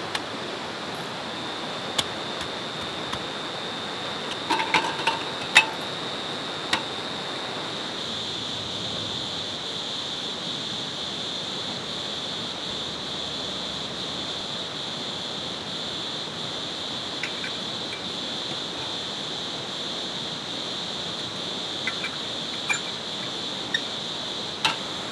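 Steady rush of a wide, fast-flowing river, with insects trilling in a continuous high tone over it. A few light clicks and knocks sound now and then, a small cluster about five seconds in and a few more near the end.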